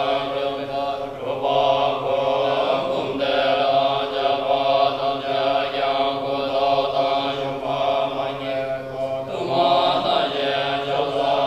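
Several Tibetan dungchen, long telescoping ritual horns, sounding together in one steady low drone with many overtones. It dips briefly about a second in, again near three seconds, and again near the end.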